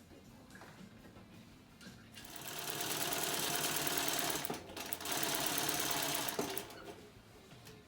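Sewing machine running at speed in two runs: it builds up about two seconds in, stops briefly near the middle, then runs again before slowing to a stop about a second before the end.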